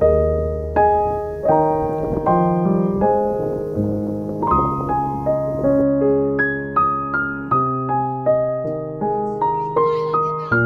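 Background piano music: a slow, gentle melody of single struck notes with sustained bass chords beneath.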